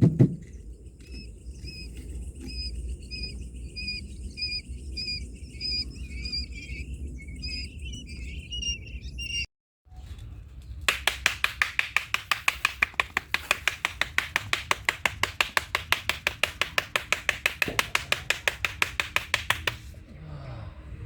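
A bird calling with a short, repeated chirp, about two a second. After a cut, a fast, even rattling pulse of about seven beats a second runs for about nine seconds.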